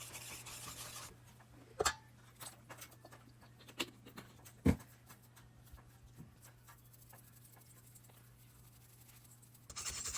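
Kitchen food-preparation handling: a scraping, rubbing sound for about a second, then a few scattered clicks and knocks of utensils and containers, one sharper knock near the middle, and scraping again near the end, over a faint steady hum.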